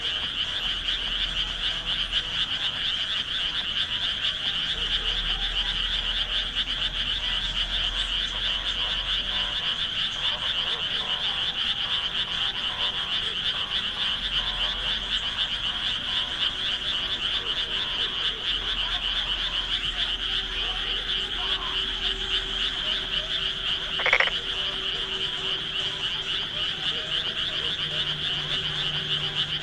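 Dense, continuous chorus of frogs calling from the rice paddies, a steady high-pitched mass of rapid calls. About 24 seconds in, a single short upward-sweeping chirp rises above the chorus.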